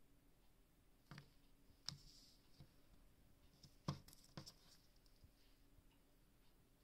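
Near silence: faint room hum with a few soft taps and rubbing sounds of a stitched leather strip being handled against the machine's plastic bed, the loudest about four seconds in.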